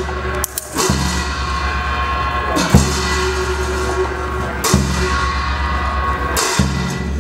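Tibetan monastic ritual music for a cham masked dance: four loud drum and cymbal strikes about two seconds apart, each ringing on, over a low sustained drone.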